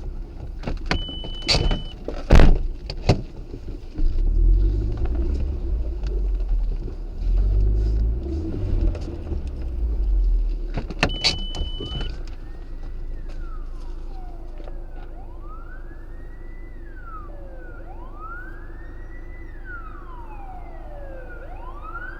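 Vehicle rumble with a few sharp knocks and two short high beeps. About halfway through, an emergency vehicle siren begins to wail, rising and falling slowly and evenly, each cycle about three seconds long.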